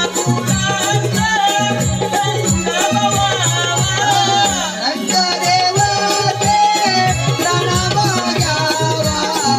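Konkani Naman folk music: a high voice singing with wavering, gliding notes over a fast, steady beat of hand drum and jingling percussion.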